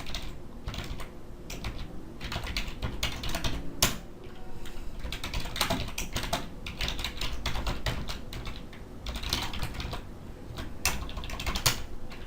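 Typing on a computer keyboard: irregular runs of key clicks with short pauses, a few strikes louder than the rest.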